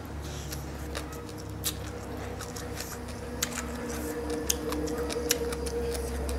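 A person chewing a mouthful of spicy green papaya salad with noodles close to the microphone: wet, squishy mouth sounds with many small sharp clicks and smacks. A steady low hum runs behind.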